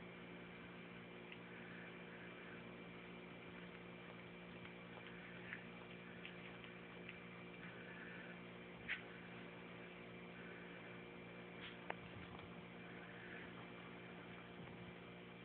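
Near silence: a steady low electrical hum with a few faint, short clicks, the clearest about nine and twelve seconds in.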